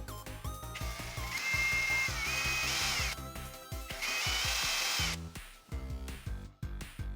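Small electric power-tool motor running in two bursts, the first about two seconds long and the second about one second, each with a whine that steps up in pitch. Background music plays underneath.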